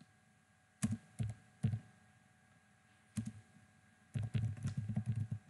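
Keystrokes on a computer keyboard: three separate key presses in the first two seconds, another a little past three seconds, then a quick run of typing near the end.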